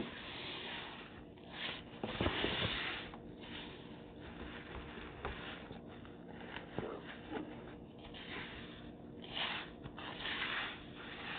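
A person's faint breaths and quiet handling noises in short, irregular puffs, over a faint steady hum.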